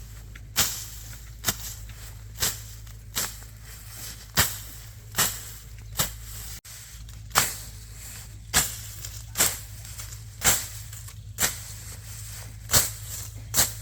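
Sharp blows struck about once a second, each with a short fading tail, over a steady low hum.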